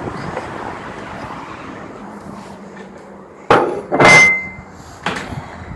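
Steady wind noise on the microphone, then a door banging: a sharp knock, a louder bang with a brief metallic ring, and another knock about a second later.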